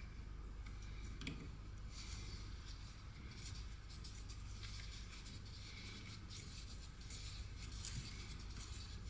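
Faint scattered clicks and light scraping of small metal parts being handled as a bolt with its spacer is fitted and turned in finger tight, over a steady low hum.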